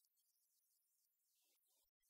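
Near silence: only a faint hiss.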